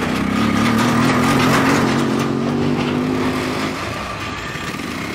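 An engine running, its pitch rising a little over the first second and a half, then holding and fading about four seconds in.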